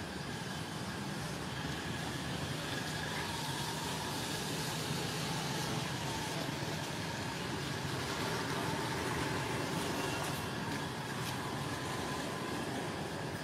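Steady outdoor background noise with a low hum underneath, like distant road traffic; no animal calls stand out.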